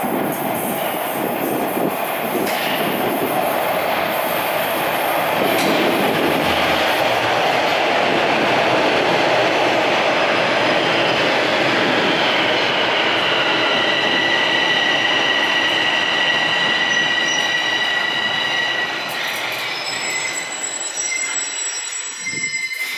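Toronto Rocket subway train arriving at an underground platform: a broad rumble of steel wheels on rail builds as it comes in. From about halfway, steady high-pitched squealing tones sound as it brakes, and higher tones join near the end as it slows to a stop.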